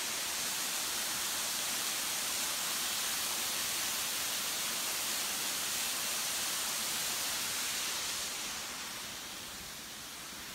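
Waterfall rushing steadily, a constant hiss of falling water that drops slightly in level near the end.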